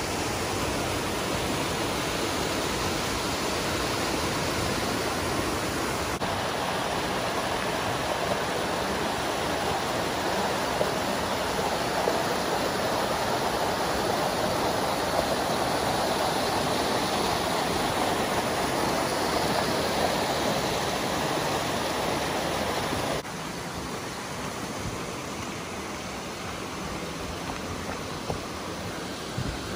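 Mountain brook rushing over rocks and small cascades, a steady rush of water. It drops to a softer rush about three-quarters of the way through.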